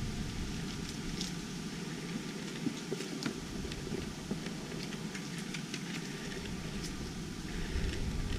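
Low outdoor background rumble with scattered faint clicks and crackles from the GoPro Karma Grip gimbal's motors as the handheld gimbal is swung around; the motors go crunchy on sudden sideways moves.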